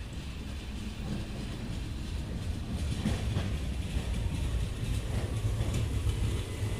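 Vienna U-Bahn U2 metro train pulling into a covered station and slowing along the platform: a low rumble that grows louder as the cars pass.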